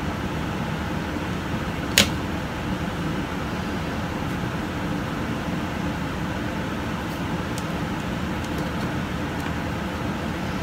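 Plastic figure parts handled and fitted together over a steady background hum: one sharp click about two seconds in, then a few faint ticks later on.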